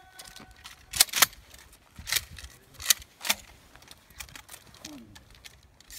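Shotgun shells being pushed one by one into a Mossberg 500 pump shotgun's tube magazine: a series of sharp metallic clicks, about five in the first three and a half seconds.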